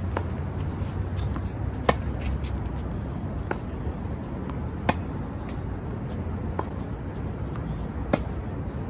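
Tennis balls being hit with rackets in a rally: sharp pocks every second and a half or so, the loudest three about three seconds apart with fainter ones between, over a steady low rumble.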